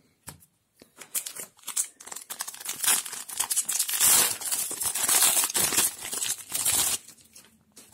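A foil trading-card booster pack being handled, then torn open and crinkled as the cards are pulled out. A few light rustles and clicks come first; the tearing and crinkling start about two and a half seconds in, are loudest around the middle, and stop about a second before the end.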